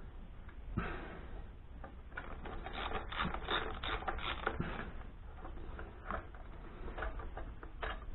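Ratchet wrench clicking in quick runs while undoing the inlet manifold nuts, densest in the middle, with scattered single clicks before and after.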